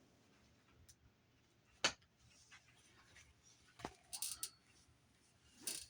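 Faint handling of small plastic bags of diamond-painting drills: a few light taps and brief crinkles, the loudest crinkle about four seconds in.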